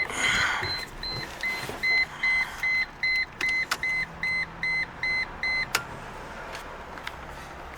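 Car warning chime beeping rapidly, about three beeps a second, from a 2002 Mercedes-Benz C240 as the ignition is tried after a blown fuse 52 is replaced. A short rushing noise comes just before the beeps begin, and a few clicks come among them.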